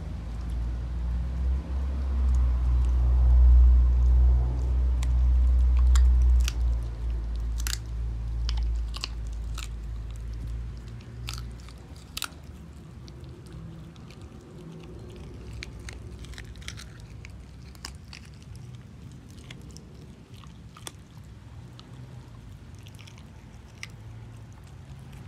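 A schnauzer chewing and crunching a chew treat, with many sharp crunches that are densest in the middle and thin out towards the end. A loud low rumble runs under the first ten seconds or so.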